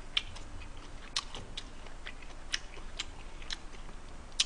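A person chewing a mouthful of food close to the microphone: soft, wet mouth clicks and smacks, irregular, a few a second.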